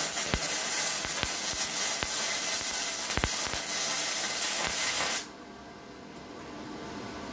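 Flux-core (self-shielded wire) welding arc from a Redbo MIG-120 welder: a loud, steady crackling hiss with scattered sharp pops, cutting off suddenly about five seconds in when the trigger is released.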